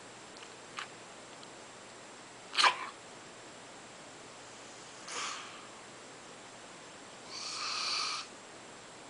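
A woman's snore-like breathing noises, made while she is awake: a short sharp one about two and a half seconds in, the loudest, a brief one about five seconds in, and a longer one lasting about a second near the end.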